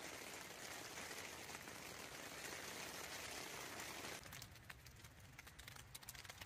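Rain and sleet falling on a tent: a steady hiss, then from about four seconds in, light scattered ticking of sleet pellets on the tent fabric.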